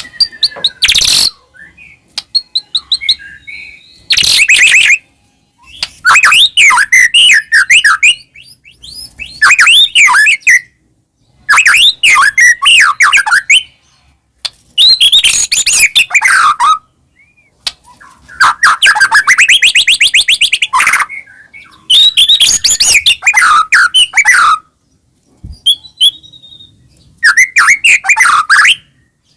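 White-rumped shama (murai batu) singing: loud, varied whistled phrases of one to three seconds each, with short pauses between them. About two-thirds of the way through, one phrase is a fast trill that rises and then falls.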